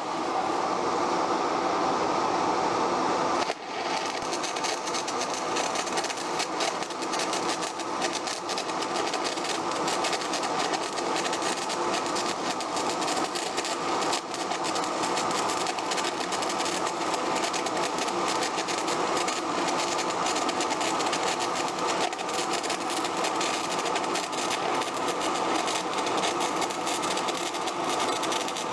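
Stick-welding arc crackling and sizzling steadily as a 7018 electrode lays a weave cover pass at about 115 to 120 amps. The arc drops out briefly about three and a half seconds in, then picks up again.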